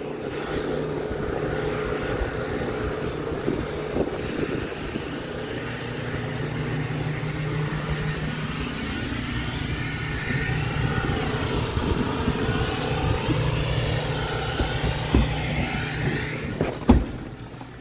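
An engine running steadily at a constant speed, a low even hum that holds throughout and dies away just before the end.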